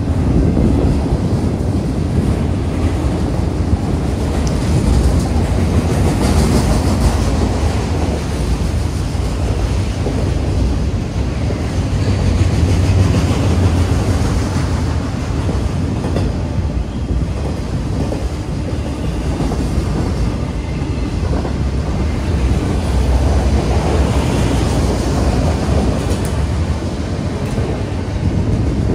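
Freight train of enclosed autorack cars rolling past: a steady, loud rumble of steel wheels on the rails with a run of clicks and clatter from the wheels and couplings.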